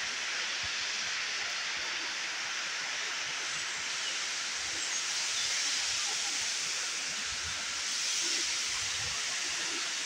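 Steady rushing hiss of the Livaditis waterfall, with soft, irregular footsteps on dry beech leaves.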